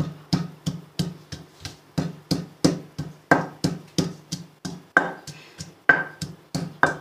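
Wooden pestle pounding peeled garlic cloves in a stone mortar, steady strikes about three a second. A few harder strikes near the middle and end ring briefly off the stone.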